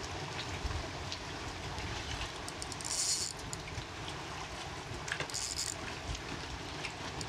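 Wind buffeting the microphone: a steady rumbling hiss, with two short high hissing bursts about three and five and a half seconds in.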